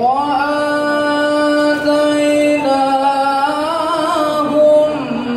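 A man reciting the Qur'an in the melodic tilawah style, amplified through a microphone: one long, drawn-out phrase with held notes, and wavering ornamental turns near the end.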